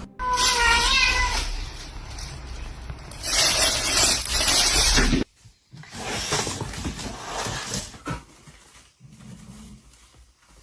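A cat meowing once, a wavering call of about a second near the start, followed by stretches of loud, hissy noise without pitch.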